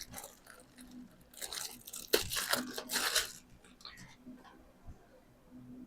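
A new washable vacuum filter being handled out of its packaging: rustling and crinkling, loudest from about one and a half to three and a half seconds in, then a few faint clicks.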